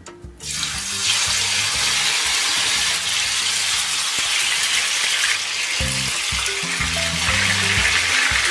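Raw chicken breasts sizzling as they are laid into hot oil in a nonstick frying pan. The sizzle starts suddenly about half a second in and runs steadily, swelling again near the end as another piece goes in.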